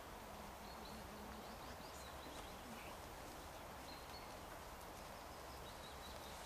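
Faint woodland ambience: a steady low hiss with a few faint high bird chirps about two, four and six seconds in.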